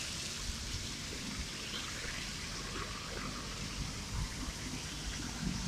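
An intercity coach passing on a wet road: a steady hiss of tyres on wet asphalt with a low engine rumble underneath, along with the general traffic.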